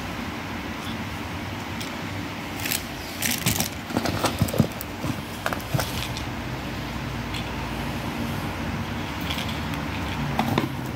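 Hands handling tools and plastic packaging: a cluster of clicks, clinks and rustles from about three to five seconds in, with a few more near the end, over a steady low hum.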